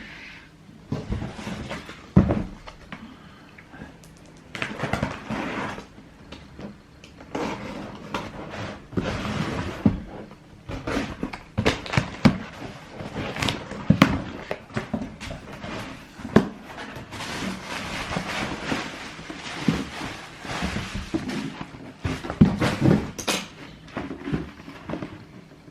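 Shoebox handling: cardboard box and paper rustling, with repeated knocks and thuds.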